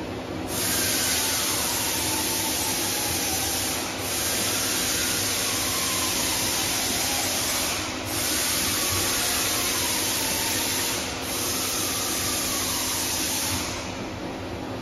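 Through-spindle coolant jetting out of the tool on a Doosan DNM750L vertical machining center: a steady loud hiss that starts about half a second in, dips briefly three times, and cuts off near the end.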